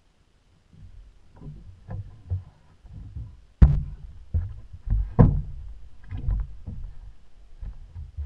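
Irregular knocks and thumps against a small boat's hull and deck, with two sharp bangs about three and a half and five seconds in.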